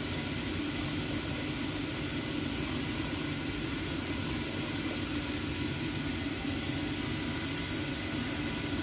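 Shoe-repair finishing machine running steadily, its motor and wheels giving an even hum. This is the machine used to rough up the leather so the sole will stick.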